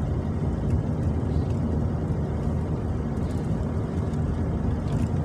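Steady low rumble of engine and road noise heard from inside a moving vehicle's cabin while driving.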